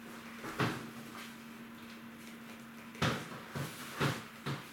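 A handful of sharp knocks and clunks, one about half a second in and four more close together near the end, of household things being handled or shut, over a faint steady hum.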